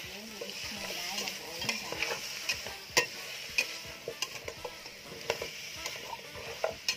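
Pork bones with lemongrass, garlic and chili sizzling in a metal pot while a spatula stirs them, scraping and knocking against the pot with irregular clicks.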